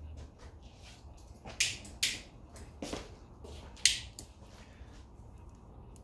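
Piezo ignition of a small disposable gas lighter clicking sharply three times, about a second and a half, two and four seconds in, with a softer knock in between.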